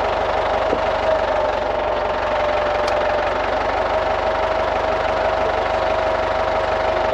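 Engine running steadily at an even speed, with a steady high whine over the engine noise.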